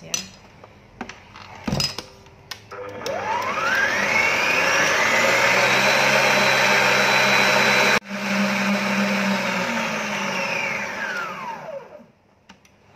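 Electric stand mixer beating egg whites with a wire balloon whisk in a steel bowl. Its motor spins up with a rising whine about three seconds in, runs steadily at high speed, then winds down with a falling whine and stops near the end. A few clicks of the speed knob come before it starts.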